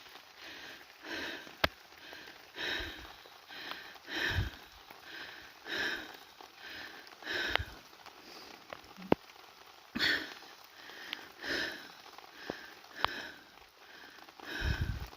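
A person breathing hard through the nose and mouth while walking, a breath about every second, over a faint steady patter of rain with a few sharp ticks of drops.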